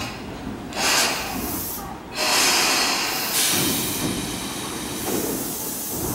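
Tobu 20050 series electric train's compressed-air system letting out three loud hisses in a row, each lasting about a second, over a low steady rumble.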